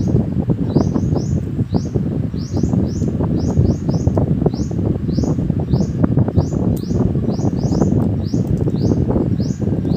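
A small bird chirping over and over, about two short, downward-sliding chirps a second at uneven spacing, over a loud, dense crackling rumble.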